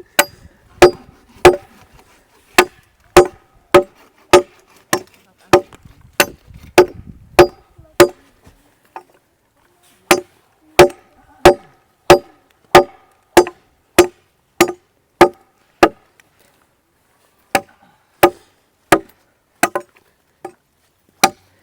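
Machete chopping into wood in a steady run of sharp knocks, a little under two a second, each with a short ring. The blows are measured, aimed for accuracy rather than full force. The chopping pauses briefly twice, about a third and three quarters of the way through.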